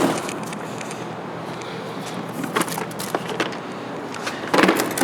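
Tool kit cases being handled: scraping and rustling with a few sharp clicks, and a louder clatter near the end.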